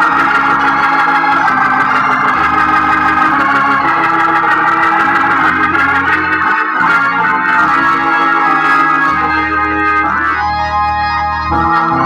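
Hammond organ played through a Leslie 122 speaker cabinet, its amplifier running on a jumped-in power transformer. Sustained chords sound over a bass line that changes every second or two, with one long low bass note held near the end.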